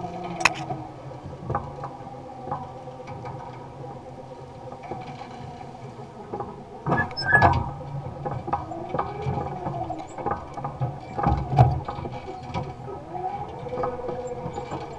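Electric motor of a converted Allis-Chalmers Model G tractor whining, its pitch slowly rising and falling, while the basket weeder working the rows rattles and clicks. The clatter is loudest about seven and eleven seconds in.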